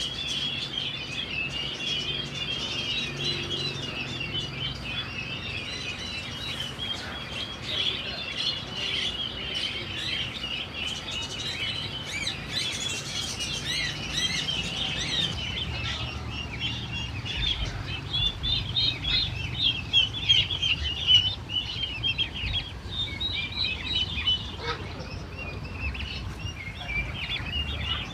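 Many small caged birds chirping and chattering at once, with calls overlapping continuously, and louder bursts past the middle.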